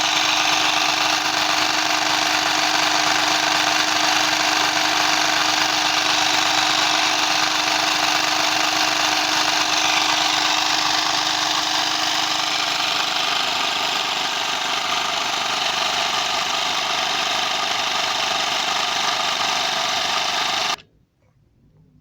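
Homemade engine-sound maker: nails on a fast-spinning wheel flicking against a small plastic sheet, making a loud, steady buzzing rattle. It cuts off abruptly near the end.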